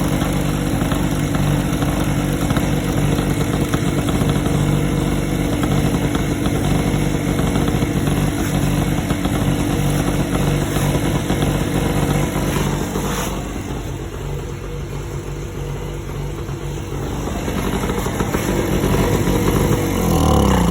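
Tiger portable generator's engine running steadily, with no electrical load because it is producing no output to the bulb. The sound dips for a few seconds past the middle, and near the end the engine's pitch falls away as it winds down.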